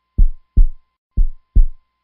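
Heartbeat sound effect: two slow lub-dub double thumps, deep and about a second apart, each pair's second beat following the first by about a third of a second.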